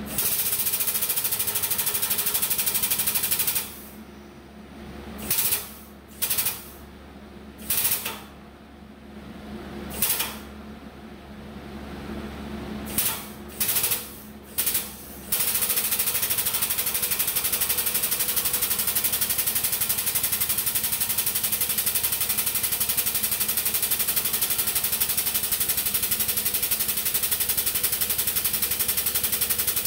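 Air-over-hydraulic bottle jack pump on a 20-ton shop press chattering rapidly. It runs for about three and a half seconds, comes in a string of short bursts as the foot pedal is tapped, then runs steadily from about halfway on as the ram pushes the finger brake through its first bend in 10-gauge steel.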